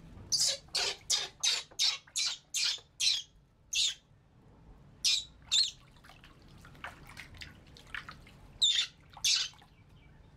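Baby monkey squealing: a quick run of about ten short, high-pitched squeals, then two more pairs of squeals later on.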